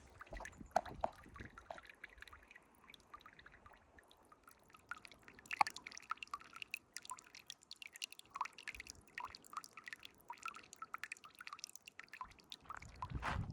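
Water dripping and trickling: an irregular run of small plinks and clicks.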